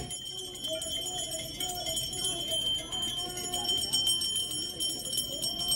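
Temple hand bells ringing rapidly and continuously during a Hindu Ganga aarti ritual, with a wavering devotional melody underneath.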